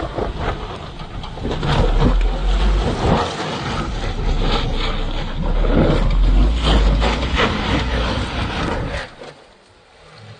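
Suzuki Jimny driving off-road: engine and drivetrain noise with repeated knocks and rattles, and wind buffeting the microphone. The noise falls away sharply about nine seconds in.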